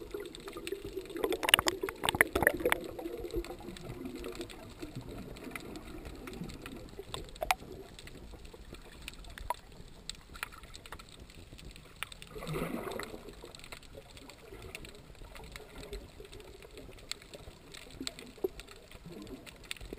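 Underwater sound through a GoPro camera housing: muffled water movement with scattered clicks and bubbling as the swimmer strokes. A flurry of sharp bubble clicks and splashes comes about two seconds in, and a short swish about twelve seconds in.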